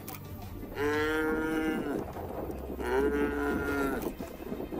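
African buffalo bellowing in distress while pinned down by lions: two long calls of about a second each, with a third starting near the end.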